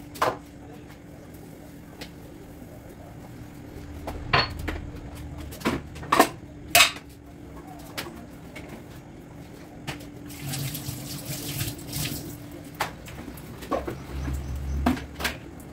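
Household objects being handled and set down on a granite kitchen counter: a series of sharp knocks and clatters, the loudest two about six and seven seconds in, and a stretch of rubbing about ten seconds in.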